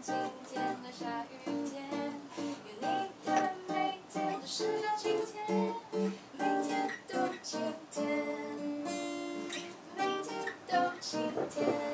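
Acoustic guitar playing a melody of quickly picked single notes mixed with strummed chords, with one chord left ringing about eight seconds in.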